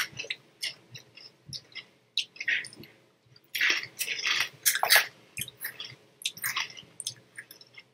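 People chewing crunchy Japanese snack sticks with their mouths close to the microphone: an irregular run of crisp crunches, loudest a little past the middle.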